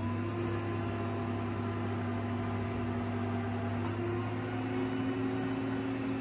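A machine running with a steady, even hum, its note creeping slightly upward near the end.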